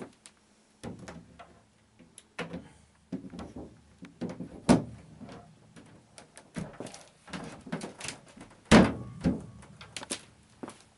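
Irregular wooden knocks and thumps, the two loudest about five and nine seconds in, from an upright piano on a wheeled dolly being handled and shifted on a wooden floor.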